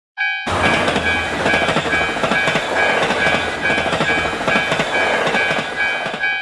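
A level-crossing warning bell sounding a steady repeating electronic tone while a train passes, its wheels clattering over the rails.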